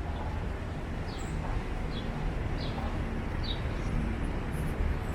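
Downtown street ambience: a steady rumble of passing traffic, with a few short, high, downward chirps in the first few seconds.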